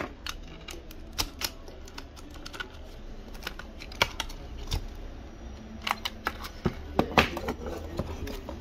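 Irregular sharp clicks and light knocks of hard parts and small tools being handled while a PC power supply is taken apart, over a low steady hum.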